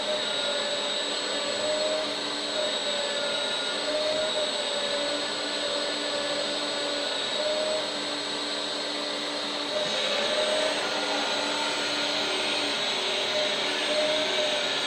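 Electric hydraulic pump of a 1/14 scale RC Komatsu PC360 excavator whining steadily, its pitch wavering slightly as it works, turning brighter and hissier about ten seconds in.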